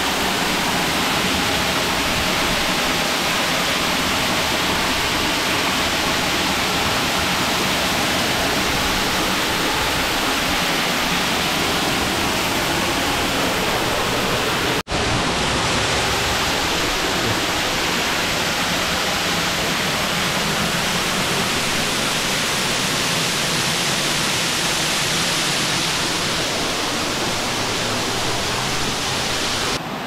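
Waterfall heard at close range: a loud, steady rush of falling water spilling over rock into a pool, cut off for an instant about halfway through.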